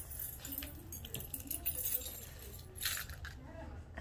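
Light metallic jingling and rustling from small items being handled, in two spells: from about half a second to two seconds in, and again briefly around three seconds in. A steady low hum runs underneath.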